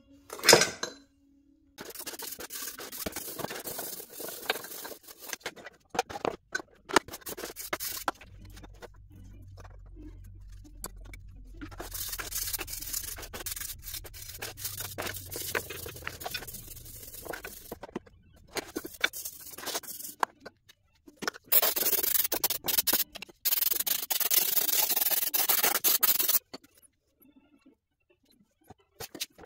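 A brush scrubbing degreaser-softened oil grime off an aluminium Mercedes M272 oil filter housing, with some scraping against the metal. The scrubbing comes in stretches with short pauses and is hardest near the end, and there is one sharp knock about half a second in.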